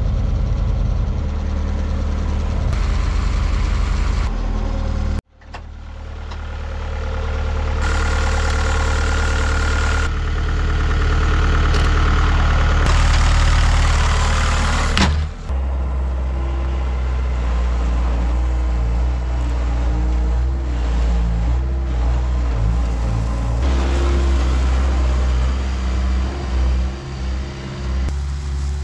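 Bobcat S205 skid-steer loader's diesel engine running steadily while spreading gravel. The sound breaks off abruptly about five seconds in and again about fifteen seconds in, and the engine's level and pitch change at each break.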